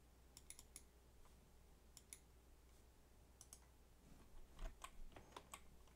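Faint computer mouse clicks: a few scattered single and double clicks, then a quicker run of clicks near the end, over a low steady hum of room tone.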